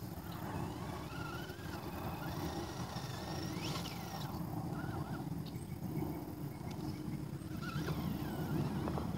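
Radio-controlled rock racer's electric motor and drivetrain whining in short rising and falling spurts as it crawls over rocks, with a steady low rumble underneath.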